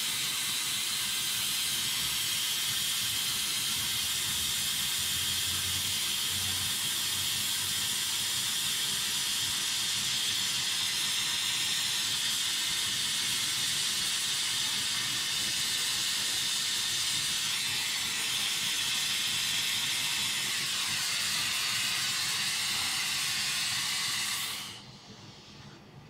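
Gas brazing torch flame hissing steadily while brazing the copper suction and discharge lines onto a replacement refrigerator compressor. The hiss cuts off suddenly about a second before the end as the torch is shut off.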